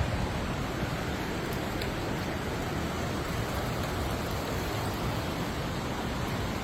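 Fast-flowing mountain stream water rushing steadily over rocks, an even roar that does not change.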